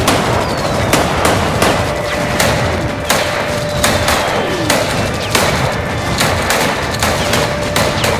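Rifle gunfire from AR-15-style carbines: sharp single shots from more than one shooter, about two a second at an uneven pace, with short falling whistles between some shots. A steady thin tone runs underneath from about two seconds in.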